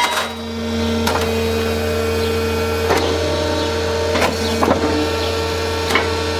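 Hydraulic rail-breaking press running with a steady mechanical hum, with a handful of light metal clanks and knocks scattered through it.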